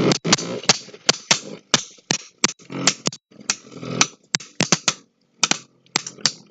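Two Beyblade Burst tops, Draciel S and Custom Dranzer S, clashing as they spin in a stadium: an irregular run of sharp clicks and clacks, several a second, with a brief pause about five seconds in.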